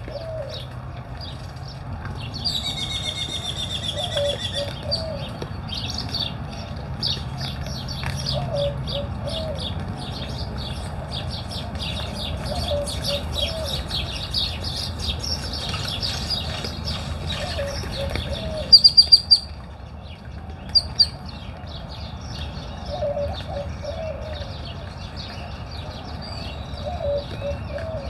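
Birds at a feeder: doves cooing in short low phrases that repeat every few seconds, over a steady chorus of high chirps from other birds. A buzzy repeated trill sounds for a couple of seconds early on, and about two-thirds of the way through come two brief loud clusters of sharp sounds.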